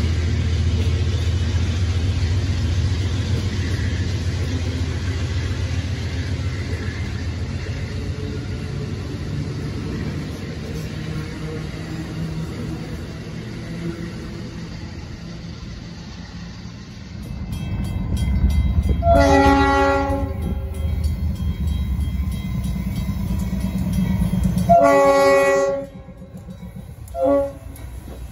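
Amtrak passenger train of Amfleet coaches rolling past at speed, its low rumble slowly fading as the rear cab car goes by. Then a diesel freight locomotive rumbles past and sounds its multi-note horn: two long blasts and a short one, with another long blast starting at the very end, in the long-long-short-long pattern of a grade-crossing signal.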